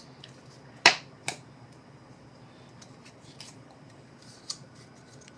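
Trading cards being handled and sorted on a table: a sharp snap about a second in and a lighter one just after, then a few faint ticks of card stock.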